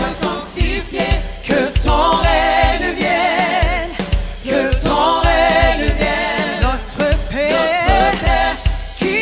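Worship band playing a gospel-style praise song, with singing over a steady drum and bass beat.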